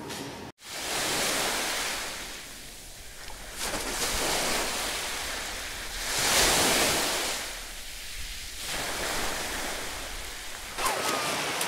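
Sea waves washing onto a beach, the surf noise swelling and fading every few seconds, with splashing through shallow water near the end.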